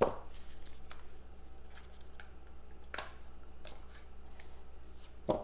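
Hands handling a small cardboard trading-card box and sliding the cards out of it: scattered soft taps and scrapes, with a sharper tap about three seconds in and another near the end, over a faint steady low hum.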